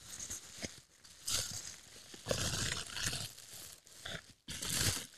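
Plastic bubble-wrap bag crinkling and rustling in three bursts as it is pulled off a camera lens.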